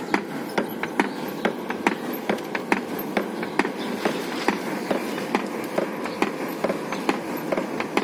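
Hand-worked leather forge bellows blowing air into a charcoal fire: a steady rush of air with frequent sharp, irregular clicks and taps.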